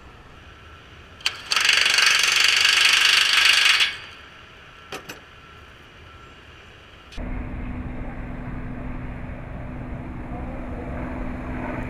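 Cordless impact wrench hammering for about two and a half seconds as it drives a bolt on steel roller coaster track, followed by two short clicks. From about seven seconds in, a steady low rumble with a constant hum takes over.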